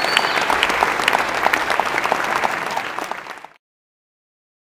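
Audience applauding at the end of a performance. The applause cuts off abruptly about three and a half seconds in, leaving dead silence.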